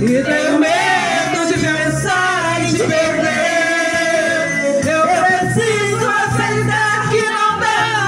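Karaoke singing: voices sung into microphones over an amplified backing track of a Brazilian romantic pop song, with sustained, gliding sung notes.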